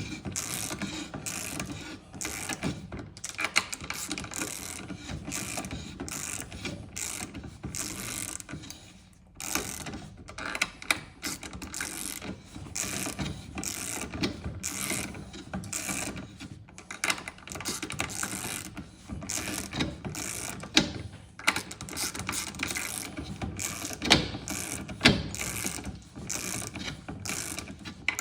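Long-handled 3/8-inch ratchet clicking in repeated strokes, with short pauses between them, as it turns a hand cutting tool that is machining a 5.0-litre Jaguar Land Rover supercharger's snout. A few sharper clacks land in the second half.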